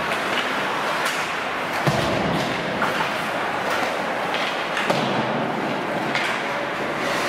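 Ice hockey game play in a rink: steady arena noise of skates and sticks on the ice, with sharp thuds against the boards and glass, the loudest about two and five seconds in.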